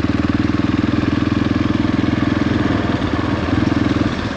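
Motorcycle engine running steadily at low, constant revs with a fast, even beat.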